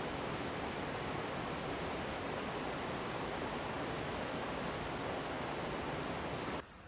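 Steady rushing noise that cuts off abruptly near the end.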